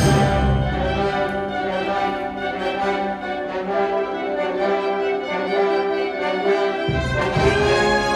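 Symphonic wind band playing live: brass and woodwinds holding sustained chords, with a double bass and tubas beneath. The lowest bass notes drop out about a second in and come back in near the end.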